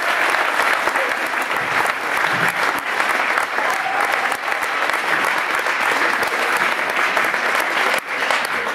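Crowd applauding in a gymnasium, with a few voices calling out over the clapping. The applause begins to die away at the very end.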